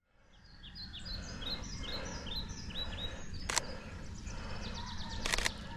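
Birds chirping in a quick series of short, high calls, over a steady low background rumble. Two sharp clicks, one about three and a half seconds in and one near the end.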